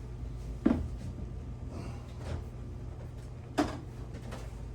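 Two sharp knocks about three seconds apart, like a cupboard door or a container being set down in a kitchen, over a steady low hum.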